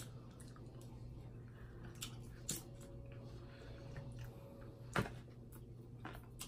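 Crab-leg shells being cracked and pulled apart by hand, with a few sharp clicks and snaps, the loudest about five seconds in, along with faint chewing and a steady low hum.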